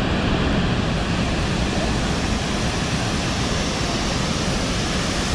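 Steady, loud rush of the Dudhsagar waterfall's heavy falling water.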